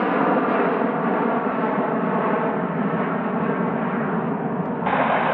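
Jet engines of a Boeing 757 freighter at climb power overhead: a loud, steady roar with a layer of humming tones. It cuts off abruptly just before the end.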